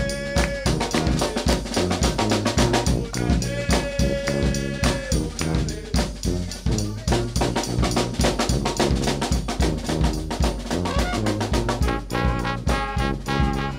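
New Orleans brass band playing: bass drum and snare drum groove over a sousaphone bass line, with band members chanting in held notes. Trumpet, saxophone, flute and trombone come in together near the end.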